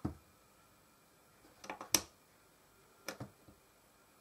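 Tactile push-button switches on a small plastic-cased LED reminder unit clicking as they are pressed and released to stop the LEDs flashing, a few sharp clicks in pairs.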